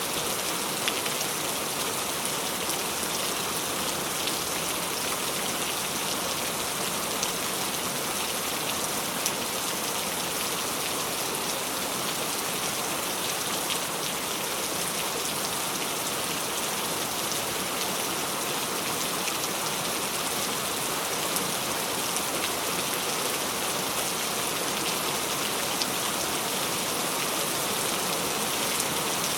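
Steady rainfall: an even hiss of rain on a surface, with a few scattered sharper drop ticks.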